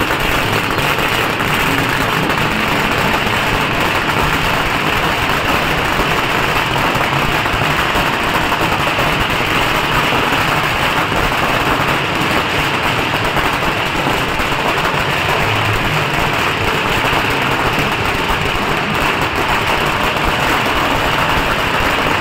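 Firecrackers going off on the street in a dense, unbroken crackle, with sparks and smoke from ground fireworks.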